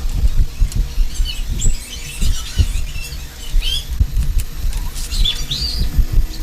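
Several short bird chirps over a loud, uneven low rumble.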